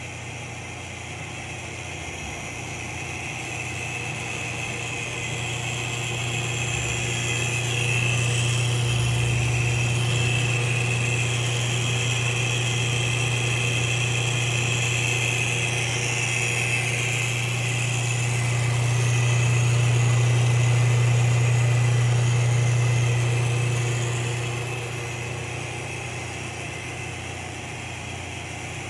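Emco 8.6 metal lathe running with no cut: its electric motor and headstock spin the chuck with a steady hum and a thin high whine above it. The sound grows louder in the middle and eases off near the end.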